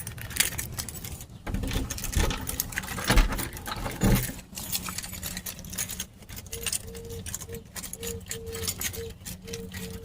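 Keys jangling and rattling in irregular clicks. A faint, evenly pitched tone pulses on and off from about six and a half seconds in.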